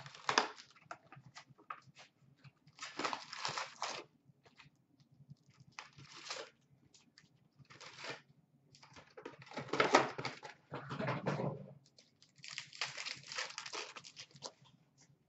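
Cardboard box of hockey cards being opened and its card packs pulled out and torn open: repeated bursts of crinkling and tearing wrapper and rustling cardboard, about six bursts with short pauses between.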